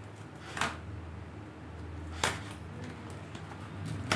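The seal on a cardboard product box being cut, heard as two short, sharp cutting sounds about a second and a half apart, over a faint steady low hum.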